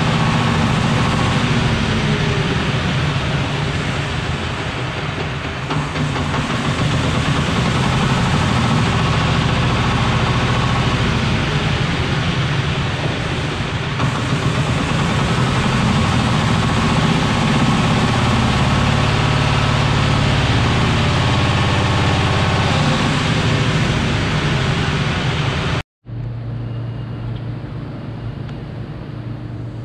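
Single-cylinder diesel engine of a 1.5-ton forklift running, its speed rising and falling as the mast is lowered. After a sudden break near the end it runs more quietly and steadily.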